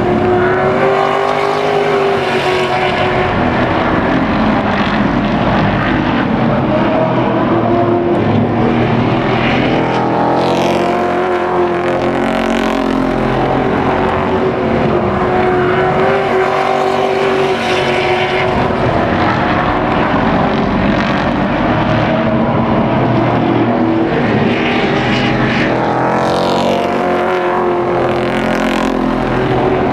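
A field of racing trucks running hard around a short asphalt oval, several engines at once, their pitch rising and falling as they circle. Louder swells come as trucks pass close by, about a third of the way in and again near the end.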